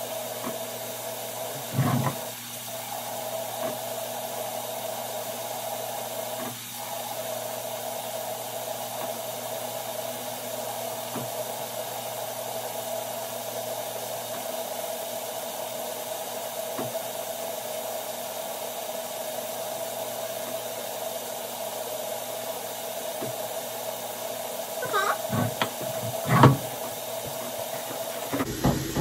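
A steady rushing, whirring noise with a constant hum, like a small motor-driven fan, runs on and cuts off suddenly near the end. A few sharp knocks and clatters sound over it, once about two seconds in and a cluster near the end.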